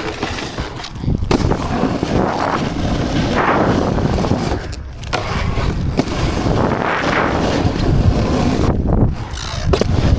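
Skis scraping and sliding over packed snow, with wind rushing on a helmet-mounted microphone. The noise swells and dips with the turns, with a few short lulls and a couple of sharp clicks.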